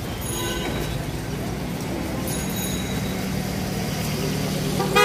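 Street traffic: a motor vehicle engine running steadily close by, with a vehicle horn sounding briefly right at the end.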